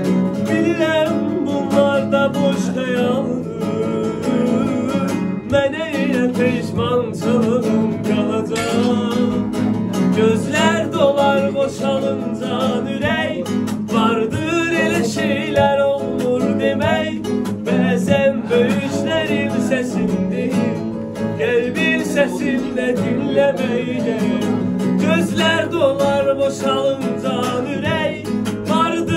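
A man singing a slow, melodic song while strumming chords on a nylon-string classical guitar.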